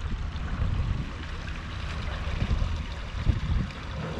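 Water splashing and trickling in the wash of a boat with a 200 HP Mercury four-stroke outboard moving away at no-wake speed, with an uneven wind rumble on the microphone.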